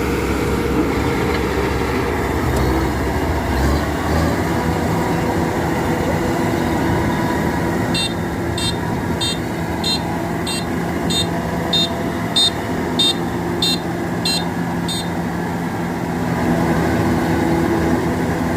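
Kubota DC-93 combine harvester running steadily in the field. Midway through, a high electronic warning beeper sounds about twice a second for some seven seconds, then stops.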